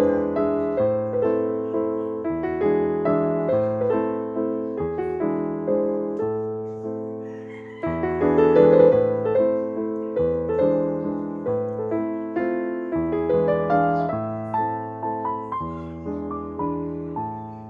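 Background piano music: a gentle melody of struck notes over a changing bass line, with a new, louder phrase about 8 seconds in.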